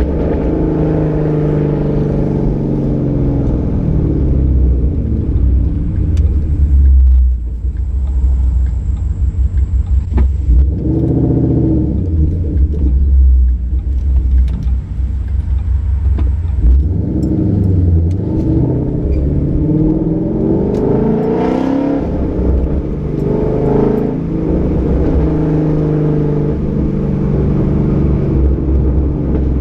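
Ford Mustang 5.0 V8 running through a Roush axle-back exhaust with an off-road X-pipe while driving. The note rises and falls in pitch through repeated revs and shifts, and breaks into a rapid stutter from about seven to ten seconds in.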